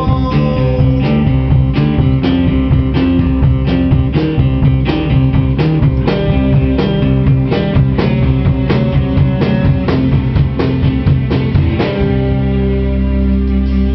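Live rock band playing an instrumental passage: guitars over a drum kit keeping a steady beat. About twelve seconds in, the drums stop and a held final chord rings on.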